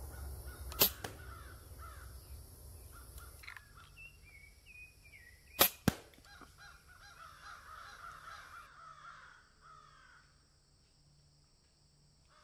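Restored air pistol fired twice, about five seconds apart, each shot a sharp crack; the second shot is followed a quarter second later by another sharp knock. Birds call in between the shots.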